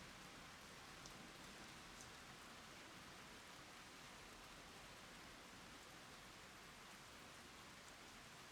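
Rain falling on the ground: a faint, steady hiss of drops, with a couple of separate drop ticks about one and two seconds in.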